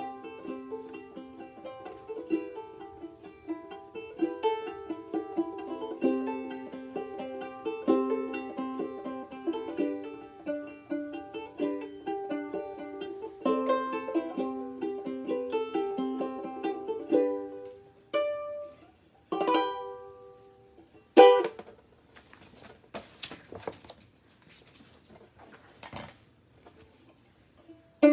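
Outdoor tenor banjolele (a banjo-ukulele) in re-entrant gCea tuning, picked in a quick run of melody notes for about seventeen seconds. After that come a few lone ringing notes or chords with light knocks and clicks between them, and the playing starts up again at the very end.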